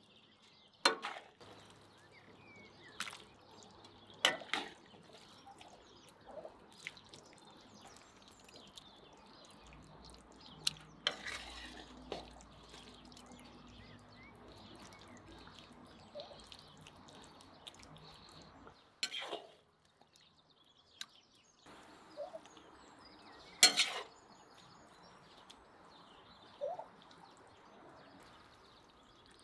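Metal serving spoon clinking and scraping against a ceramic plate and cooking pot as thick meat and vegetable stew is spooned out, with soft wet plops of food. Several sharp clinks, the loudest late on.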